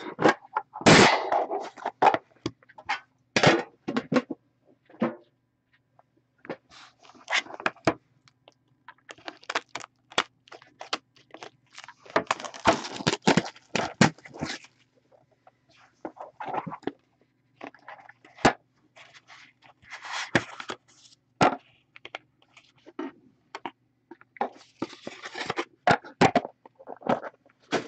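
Hands opening a factory-sealed 2013-14 Upper Deck The Cup tin box of hockey cards: irregular scrapes, crackles and sharp clicks as the sealed tin is worked open, the inner box pulled out and the stack of cards set on the table.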